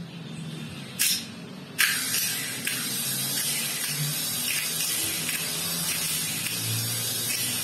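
Starter motor, its grounded carbon brush holder just repaired, run on the bench off a car battery: a short burst about a second in, then from about two seconds in it spins freely with a steady high-pitched hissing whir.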